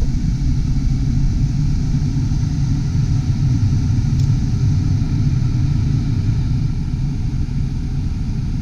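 Heater blower fan running steadily with a constant rush of air over the idling V6 engine of a 1995 Ford Taurus, heard from inside the cabin.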